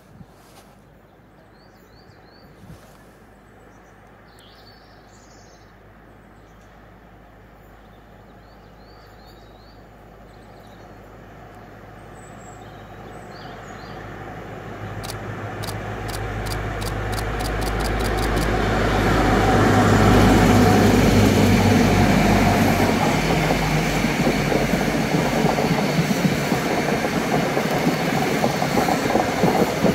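British Rail Class 43 HST diesel power car approaching slowly at the head of its train, growing steadily louder and loudest as it passes about two-thirds of the way in, then the steady rumble of the coaches rolling by. A run of quick, evenly spaced clicks comes as the train draws near.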